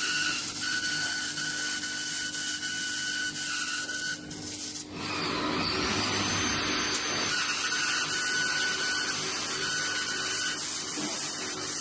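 CO2 laser cutting machine at work: a steady hiss with a high whine that stops and starts, briefly dropping about five seconds in.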